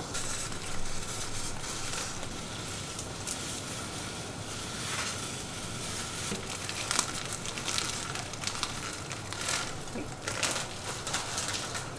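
Water boiling hard in a small stainless steel saucepan over a high gas flame: a steady bubbling and crackling over the burner's hiss, with a few louder crackles about seven and ten seconds in.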